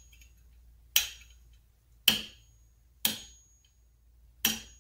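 Hammer tapping a pin punch four times, about once a second, to drive the pad retaining pin out of a 2014 Corvette Z51's brake caliper. Each strike is a sharp metallic tap with a brief ring.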